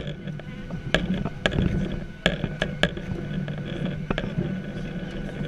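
Cabin noise of a Boeing 737-700 taxiing: a steady low hum with scattered sharp clicks and knocks, the loudest a little over two seconds in.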